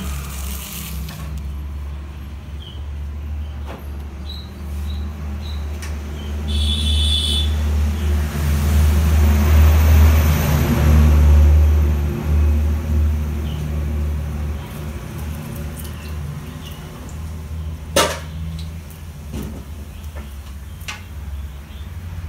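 Puris deep-frying in a kadai of hot oil: a sizzling hiss that swells in the middle, over a steady low rumble. One sharp knock comes near the end.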